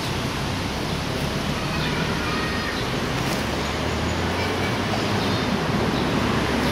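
A steady rushing noise, growing slightly louder near the end.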